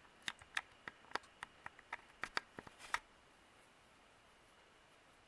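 Harbor Breeze Troches ceiling fan spinning down after being switched off, giving a quick run of light clicks about three or four a second that stop about three seconds in, leaving only a faint steady noise.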